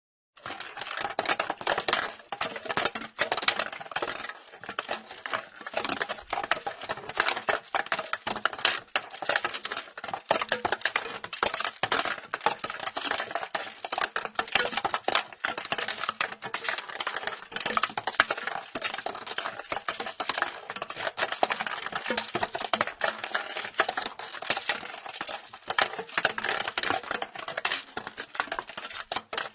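A small ball rattling around inside a plastic box as the box is rotated: a continuous dense clatter of light clicks and knocks.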